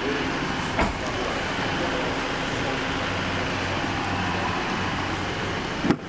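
A car running steadily, a low hum under an even rushing noise, with a single knock about a second in and a sharp click near the end.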